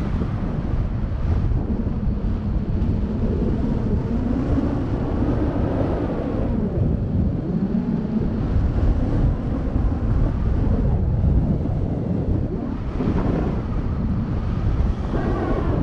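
Wind rushing over the camera microphone of a paraglider in flight, a steady low buffeting rush.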